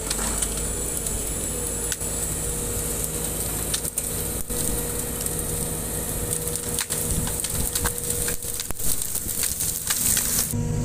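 Sumitomo SH210 hydraulic excavator's diesel engine running steadily while its bucket pushes through and crushes dry brush and branches, with repeated crackling and snapping of wood that gets busiest in the last few seconds.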